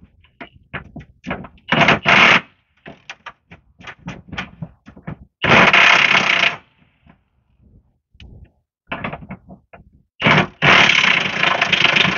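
Impact wrench hammering on the plow's cutting-edge bolts in bursts: a short burst about two seconds in, one of about a second near the middle, and a longer one of over two seconds near the end, with scattered metal clicks and knocks between.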